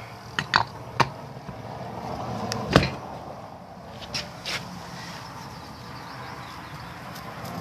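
About six sharp metal taps and knocks, the loudest about three seconds in, from parts of a tractor water pump being handled and fitted during reassembly.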